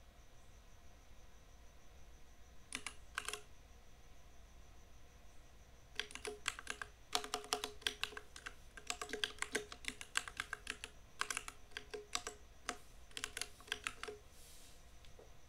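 Typing on a compact mechanical keyboard: a few keystrokes about three seconds in, then a fast run of keystrokes with brief pauses from about six seconds in until shortly before the end.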